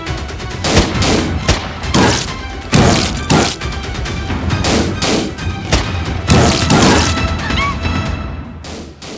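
Film soundtrack of action music overlaid with a dense, irregular string of gunshot and explosion effects, which fade away near the end.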